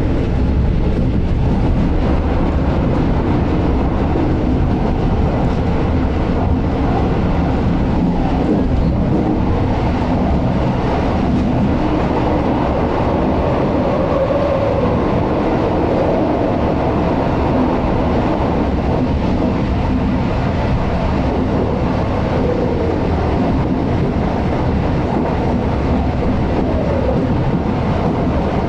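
Regional passenger train running at speed, heard from inside the carriage: a steady, loud rumble of wheels on rails with a faint wavering higher tone over it.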